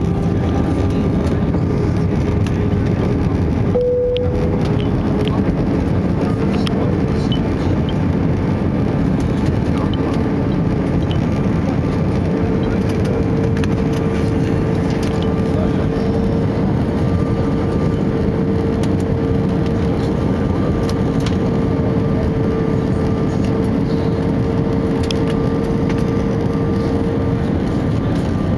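Steady cabin noise inside an Airbus A320-214 on final approach: the roar of airflow over the fuselage with the hum of its CFM56 turbofan engines. A steady engine whine within it grows stronger and rises slightly in pitch about twelve seconds in.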